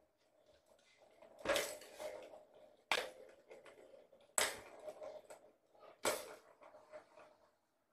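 Balls knocking and rattling around a plastic tiered ball-track cat toy as a kitten bats at it: four sharp knocks, each trailing off in a short rattle of the ball rolling in the track.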